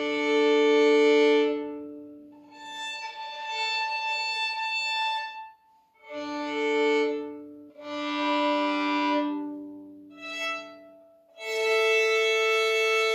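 Violin open strings bowed in long sustained notes, mostly two strings at once in perfect fifths, moving across the strings one pair after another with short breaks between, as the instrument is tuned in fifths from the A string set to 442 Hz.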